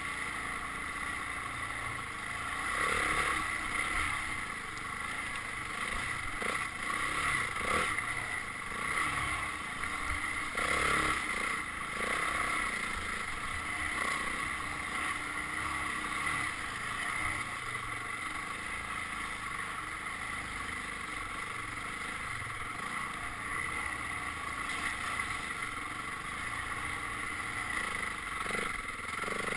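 Dirt bike engine running during a ride, steady with a few louder surges in the first half.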